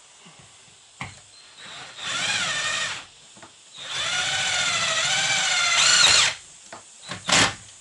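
Cordless drill driving a screw into the bus's ceiling trim: a whine of about a second, then a longer run of two to three seconds whose pitch climbs near its end as the screw goes home, then a brief final burst near the end.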